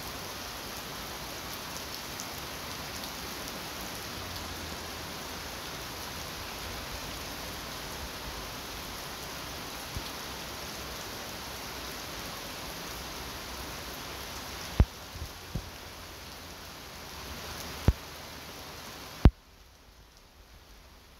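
Steady rain falling, an even hiss. Near the end come four sharp knocks, and after the last one the rain sound drops away abruptly to a much fainter level.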